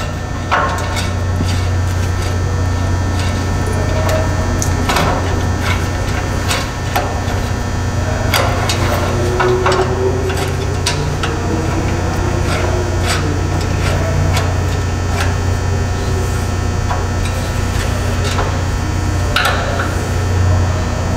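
Scattered clicks, taps and knocks of metal cable-tray brackets, T-nuts and bolts being handled and started by hand on the table frame, over a steady low hum.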